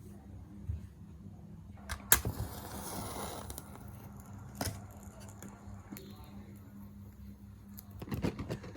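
Packaging being handled and cut open: a few sharp snips or clicks, with a brief rustle of paper or plastic a couple of seconds in.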